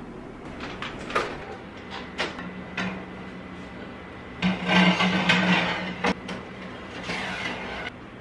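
Metal baking tray clattering and scraping as it is slid along the rack rails into an oven, loudest midway, followed by the oven door being swung shut.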